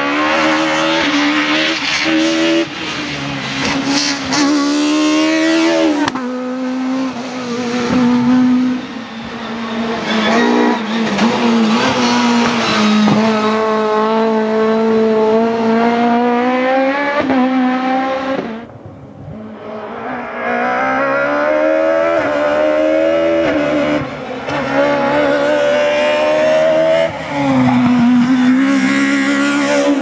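Peugeot 306 Maxi rally cars' naturally aspirated four-cylinder engines driven hard, the revs climbing in long rising sweeps and dropping back at each gear change. The noise drops away briefly a little over halfway through, then returns.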